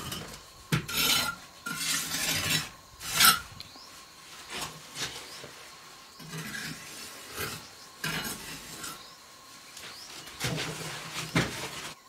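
Mason's trowel scraping and spreading mortar and knocking bricks into place as a brick wall is laid: an irregular run of gritty scrapes and sharp knocks.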